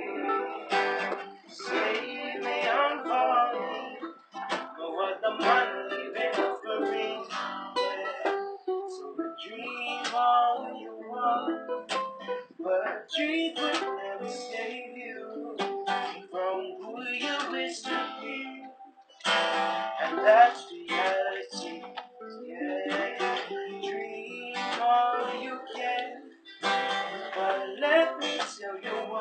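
A ukulele and two acoustic guitars strummed together in an informal jam, playing chords with a few brief breaks between phrases.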